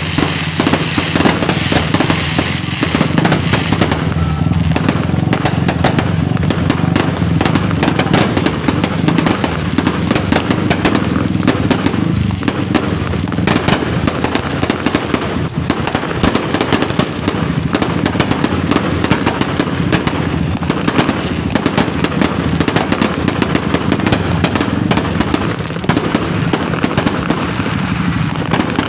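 A loud, continuous barrage of fireworks: rapid pops and crackles overlapping without a break.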